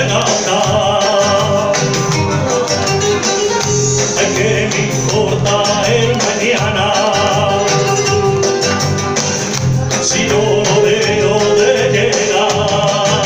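A man singing a Spanish rumba live into a microphone over a loud backing track with guitar and a steady beat.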